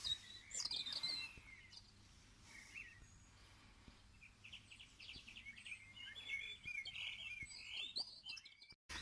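Small birds chirping and singing, faint, with a burst of chirps in the first second and a longer run of trills and chirps from about halfway through.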